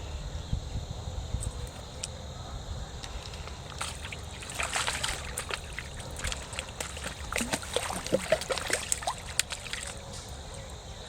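Water splashing and sloshing in a run of small, irregular splashes, from about four seconds in until about nine seconds in.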